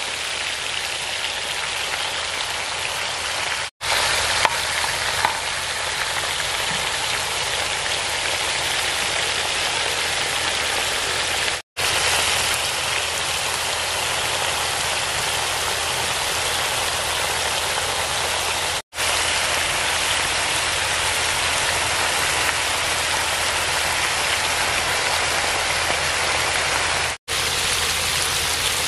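Minced-beef tikka patties sizzling in hot oil on a flat iron griddle (tawa): a dense, steady hiss of frying fat, cut off briefly four times.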